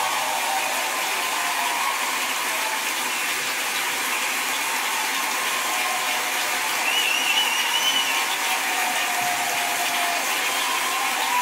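A large audience in a concert hall applauding and cheering, with a steady wash of clapping. Scattered voices call out over it, and a high whistle or whoop comes about seven seconds in.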